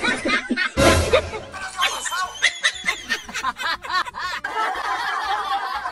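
Snickering laughter: a quick run of short, high-pitched laughs in the middle, after a loud noisy burst about a second in.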